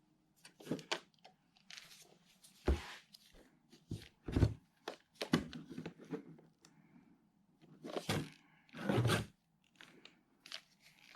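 Handling noises from tools and accessories being picked up and set down: irregular knocks, clunks and short rustles or scrapes, spaced unevenly, with one of the loudest clunks about four seconds in and a longer rustle near nine seconds.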